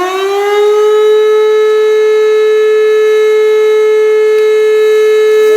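Tornado siren sound from the Air Raid Siren phone app finishing its wind-up: the pitch rises and levels off about a second in, then holds as one loud, steady tone.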